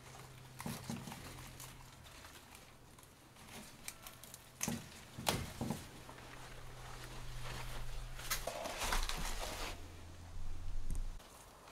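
Rustling and handling noises of leafy greenhouse plants as bitter gourds are picked, with a few sharp clicks and snaps about five seconds in, over a faint steady low hum.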